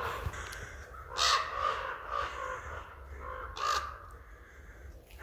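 Common ravens calling from about a second in, a run of caws roughly every half second, two louder than the rest.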